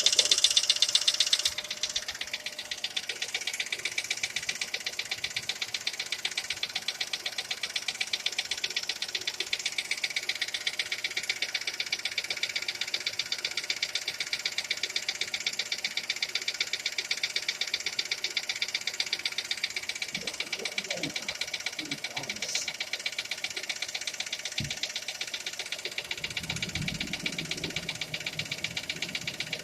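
Skoda Fabia engine running steadily with a fast, regular knock keeping time with the engine, louder for the first second and a half. The knock is the fault whose cause is being sought.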